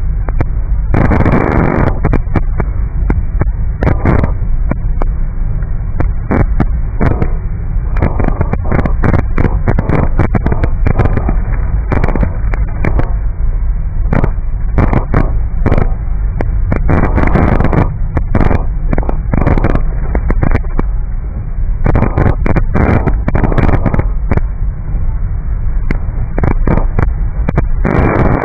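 Heavy rain pelting a car's windshield and roof, making many irregular loud pops over the steady low rumble of the moving car.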